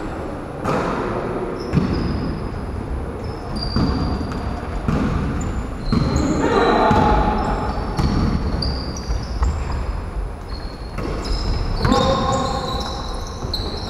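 A basketball bouncing on a wooden parquet gym floor during play, with many sharp bounces and sneakers squeaking in short high chirps.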